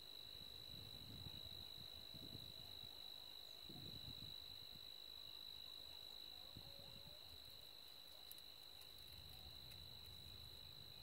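Crickets trilling in a faint, steady high-pitched drone, with a few soft low rumbles coming and going.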